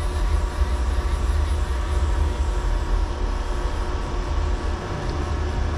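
CNC milling machine running, its Z-axis servo driving the spindle head down under hand-wheel control: a steady hum over a strong low rumble.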